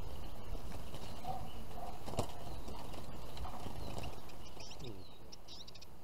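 Handling noise as a wooden bird trap with a wire cage is carried and set down: a steady low rumble with a single knock about two seconds in. Near the end a few short, high chirps from small birds.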